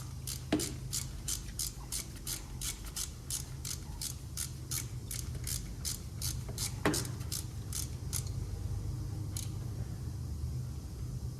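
Ratchet wrench clicking at an even pace, about three clicks a second, as a spark plug is tightened down. The clicking stops about eight seconds in, with two louder knocks along the way.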